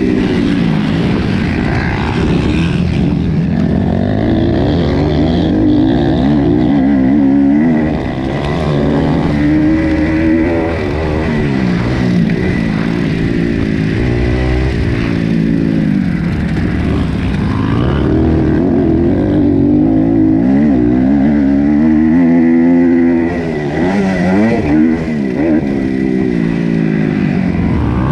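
Motocross bike engine heard from on board, revving up and down through the gears under hard acceleration, with the throttle shut off briefly about eight seconds in and again near the end.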